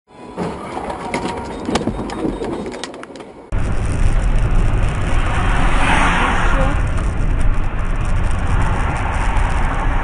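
Car road and engine noise heard from inside a moving vehicle. It is quieter at first with a few clicks, then a louder, steady low rumble cuts in suddenly about three and a half seconds in.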